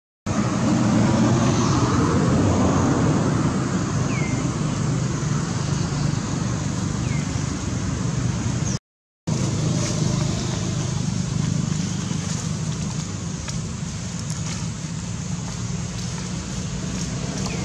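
Steady outdoor rumble and hiss, like distant road traffic, with two short high chirps about four and seven seconds in; the sound drops out completely for a moment about nine seconds in.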